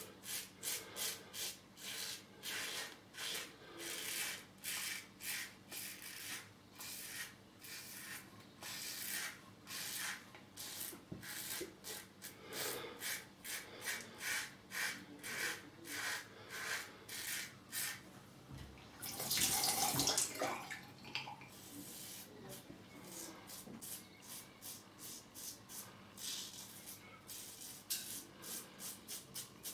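Rex Supply Co. Ambassador double-edge safety razor with a Gillette Red blade scraping through lathered stubble on the neck and jaw, in quick short strokes about two a second. About two-thirds of the way through there is a louder rush of noise lasting about two seconds.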